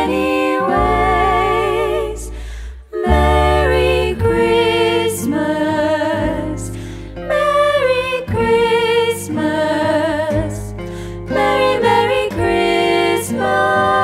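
Three women singing in close three-part harmony with vibrato, accompanied by a strummed acoustic guitar and a plucked upright double bass, in a 1930s vintage swing style. The music breaks off briefly about three seconds in and then carries on.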